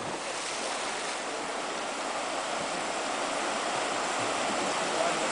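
Rushing river rapids: a steady, even hiss of moving water that grows slightly louder.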